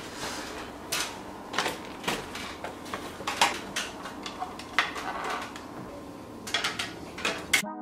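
Small objects being picked up and set down on a glass tabletop: irregular light clicks and knocks over a steady room hum. Piano music cuts in just before the end.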